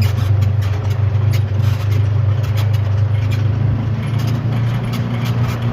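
A vehicle engine running with a steady low drone, overlaid by frequent short rattles and knocks.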